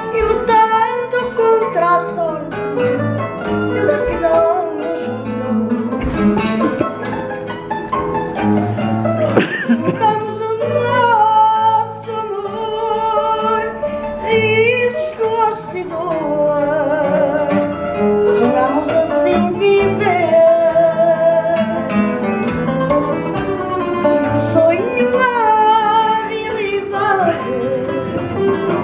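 Live fado: a Portuguese guitar plays the melody over a viola de fado's chords, with a woman's voice singing at times.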